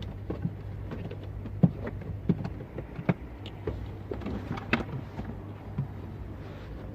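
Plastic wiring-loom plugs being pushed into their sockets behind a car head unit: irregular clicks and knocks of plastic connectors and handling, over a steady low hum.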